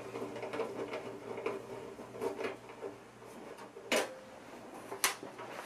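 Screws being backed out of a floppy drive enclosure's sheet-metal cover with a screwdriver: small scrapes and clicks, with two sharper clicks about four and five seconds in, over a steady low hum.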